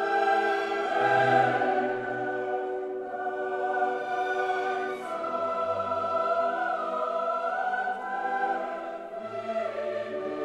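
Choral music: a choir holding long, slow chords that change every second or two.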